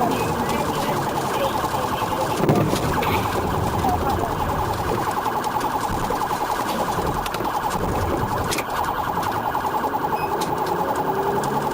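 Police car siren sounding in a fast, rapidly repeating cycle, over engine and road noise.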